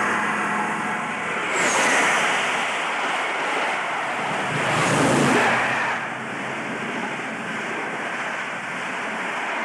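English Electric Class 50 diesel locomotive, with its 16-cylinder engine, passing at speed with a train of coaches: a loud rush of engine and wheel noise that swells twice, about two and five seconds in, then settles into a steady rumble as the coaches go by.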